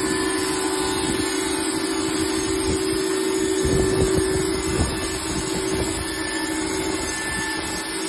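Wood-Mizer LT20 band sawmill running, its motor and band blade giving a steady hum, with a brief knock nearly five seconds in.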